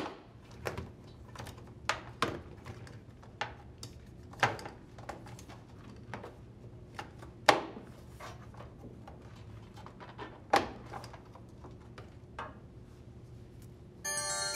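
Irregular light clicks and knocks of plastic and rubber being handled as the connector nozzle is worked out of an LG washer's rubber door boot seal. Near the end a bright chime of musical tones comes in.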